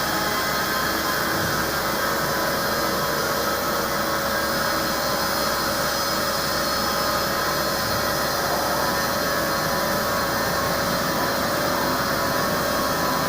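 Hartford CNC milling machine running a milling job: a steady machine whine with several constant tones over an even mechanical noise.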